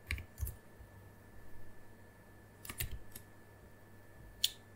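A few scattered computer keyboard keystrokes with pauses of a second or more between them, as a line of code is deleted.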